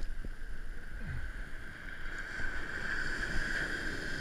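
Steady wash of ocean surf on a beach, with wind noise on the microphone.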